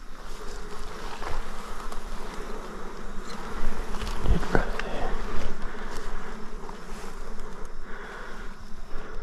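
Flying insects buzzing in a steady, wavering hum, with one low thump about four seconds in.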